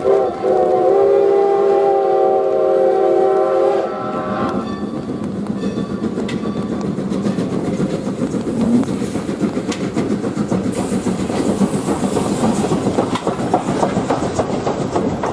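Steam locomotive whistle blowing, dipping briefly just after the start and then held until it cuts off about four seconds in. The steam train then runs past, its passenger coaches rolling by with wheels clicking over the rail joints.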